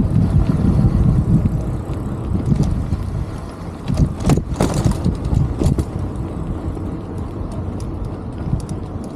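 Low, rumbling road and wind noise on a moving camera riding through city traffic, with a few sharp clicks about four to five seconds in.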